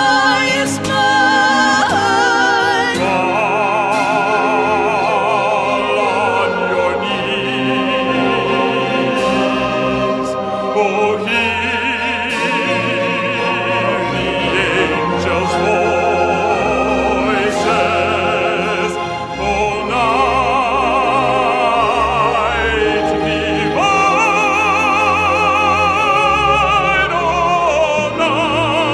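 Operatic singing: a classically trained voice holding long notes with wide vibrato over instrumental accompaniment.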